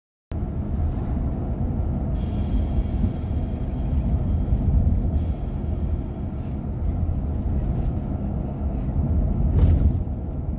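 Car interior noise while driving: steady low road and engine rumble from inside the cabin, cutting in suddenly just after the start, with a brief louder rush near the end.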